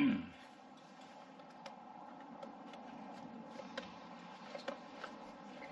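Faint scattered clicks and ticks of light-fixture hardware being handled, after a brief low thump right at the start, over a steady faint background noise.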